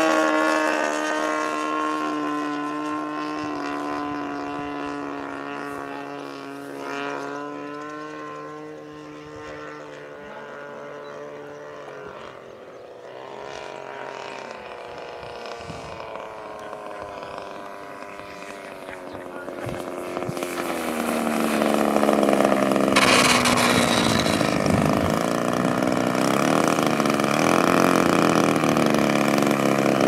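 DLE 20cc single-cylinder two-stroke gas engine of a radio-controlled Texan model plane running in flight. It is loud as the plane passes at the start and fades as it flies off, with its pitch sliding down. About two-thirds of the way through it grows loud again as the plane comes back in close to land, its pitch dropping once more as it passes.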